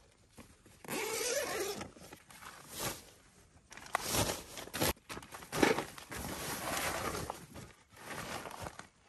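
Nylon tent fabric and gear bags rustling and scraping as bundles, a rolled sleeping bag and a backpack are pushed in through the tent door and dropped on the tent floor, in uneven bursts with a few soft thuds.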